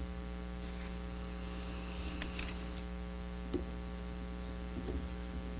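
Steady electrical mains hum with its stack of overtones, with two faint ticks about three and a half and five seconds in.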